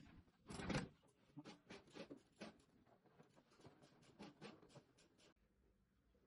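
Quiet, irregular soft clicks and knocks from hands working, the loudest a longer rustling knock a little under a second in, then near silence near the end.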